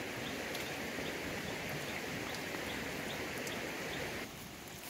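Small wood cooking fire of sticks under a lidded pot, giving a steady crackling hiss with faint, evenly spaced high ticks. It drops a little quieter about four seconds in.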